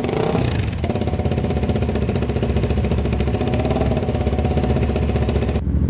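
Motorcycle engine running through an aftermarket slip-on exhaust, its revs falling back in the first second and then holding a steady idle.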